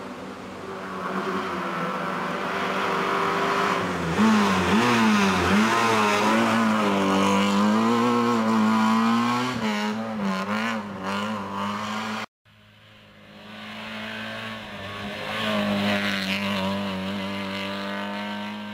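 Peugeot 106 rally car's engine revving hard through bends, its pitch dipping and rising again and again as it changes gear and takes the corners. The sound cuts out briefly about twelve seconds in, then the engine builds up again as the car comes through another bend.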